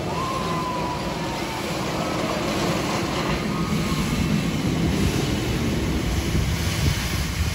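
Steam locomotive No. 22 moving slowly, its low rumble growing louder as it comes closer, with steam hissing from around its cylinders.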